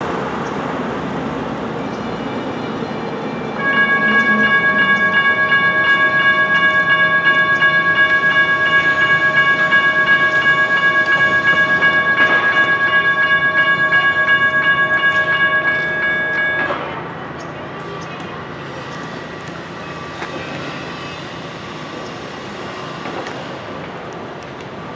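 A railroad crossing's General Signals Type 1 electronic bells dinging rapidly and loudly as the crossing activates and the gates come down. They stop abruptly about two-thirds of the way through, once the gates are lowered, leaving only a low background noise.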